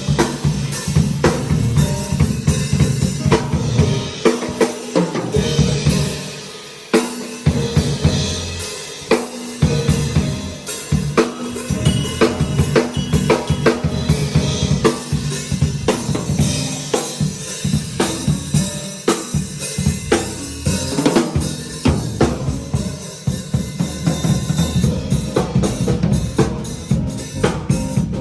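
Live band playing, with the drum kit to the fore: steady kick, snare and rimshot hits and cymbals over bass guitar, with electric guitar and keyboard.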